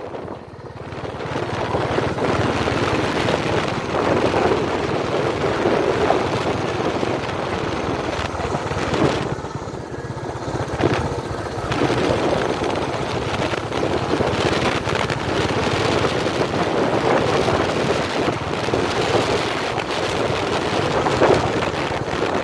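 Vehicle driving along a rough dirt track: a steady mix of engine and tyre noise with wind buffeting the microphone.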